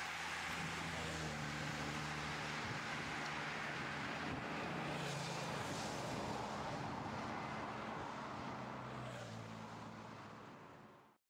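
Motorcycle and car engines of a race escort convoy running past at close range, their pitch shifting as they go by, over a steady rush of wind and road noise. The sound fades near the end and then cuts off.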